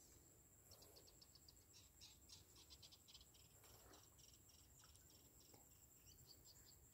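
Near silence: faint outdoor ambience with soft trains of quick, high-pitched chirps.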